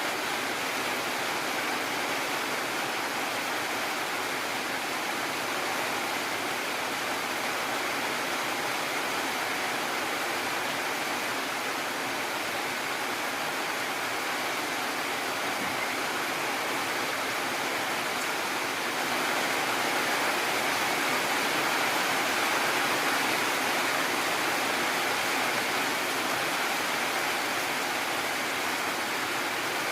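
Heavy rain pouring down in a steady, dense hiss, swelling slightly louder about two-thirds of the way through. No thunder is heard.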